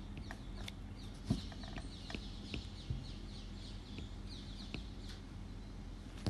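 Stylus tapping and scratching on a writing tablet, with scattered sharp clicks, the strongest about a second in and again near three seconds. Short high chirps recur throughout over a steady low electrical hum.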